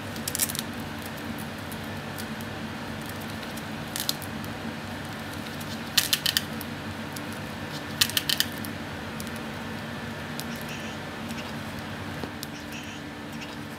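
Paper and a clear plastic sheet being handled and pressed flat by hand, making a few short crinkling rustles, the loudest two in the middle, over a steady low hum.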